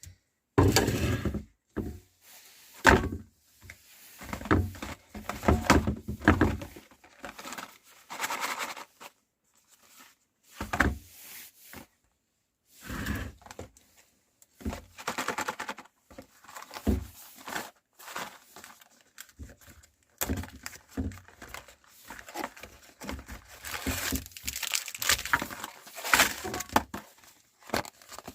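Plastic wrapper of Dark Fantasy Choco Fills cookies crinkling and tearing in irregular bursts, with short knocks and thuds as the packet and cookies are handled.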